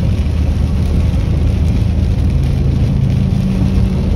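Steady low drone of a vehicle driving in heavy rain, heard from inside the cabin: engine and tyre noise on the wet road, with a hiss of rain and spray over it.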